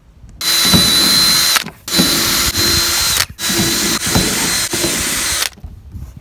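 Cordless drill with a 6 mm wood bit boring holes through a canoe's hull, run in three bursts of one to two seconds each with short pauses between, a steady high motor whine over the cutting noise.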